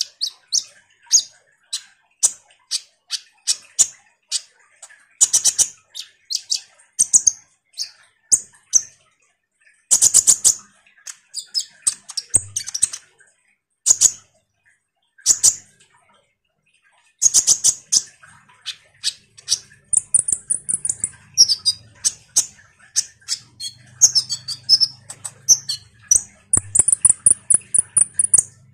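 Kolibri ninja, a sunbird, singing in full chatter: rapid strings of sharp, high chirps and short trills, with a brief pause a little past halfway and longer high, buzzing trills later on. A faint low hum sits under the second half.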